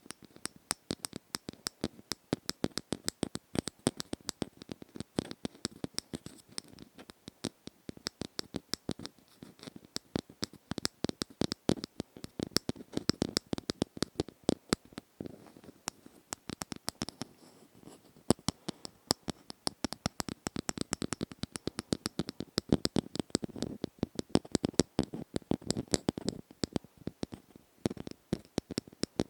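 ASMR trigger sounds close to the microphone: rapid, irregular clicking and scratching, many strokes a second.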